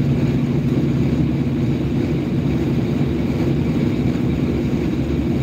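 Pickup truck driving, heard from inside the cab: a steady low drone of engine and road noise with a few held hum tones.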